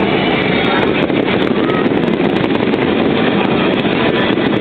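New Year's Eve fireworks and crowd heard through a small camera microphone: a steady, dense wash of noise with faint crackle, without distinct single bangs.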